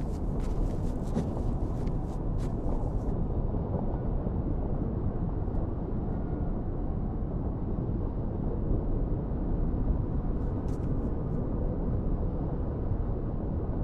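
Underwater ambience: a steady low rumble and wash, with a few faint clicks in the first three seconds and again about ten seconds in.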